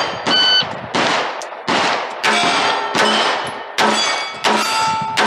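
A shot timer gives a short beep about a third of a second in. A pistol then fires a string of single shots, one every half second to second, at steel plates, and several hits leave a short metallic ring.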